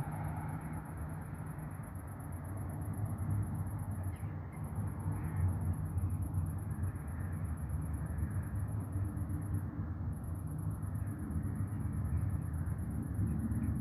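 Outdoor balcony ambience: a steady low rumble like distant traffic, with a thin high-pitched continuous trill that breaks off briefly twice.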